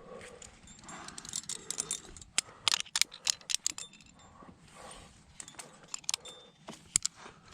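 Metal climbing gear (carabiners and quickdraws) clinking and jangling on a harness, with knocks and scrapes against rock as a climber works up a tight chimney. The clinks bunch together from about a second to three and a half seconds in, with another sharp one near the end.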